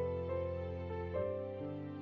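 Slow, gentle background music: held notes that change to a new chord every second or so.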